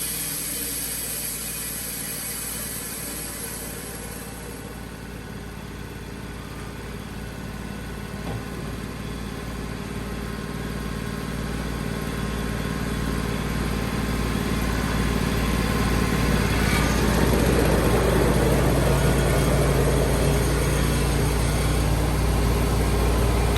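Wood-Mizer portable sawmill's engine running steadily. It grows louder and busier from about halfway through.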